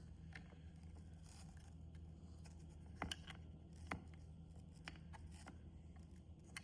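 Quiet handling of plastic device and mount parts: a few faint, short clicks and taps, the clearest about three and four seconds in, over a low steady hum.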